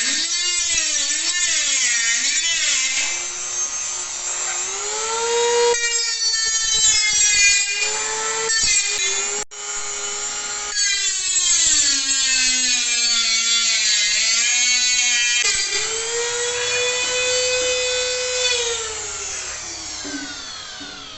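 Micro rotary tool (die grinder) cutting a round speaker hole in the thin metal wall of a Heineken mini keg: a high whine whose pitch sags and recovers as the bit bites, broken off briefly a few times, then winding down near the end.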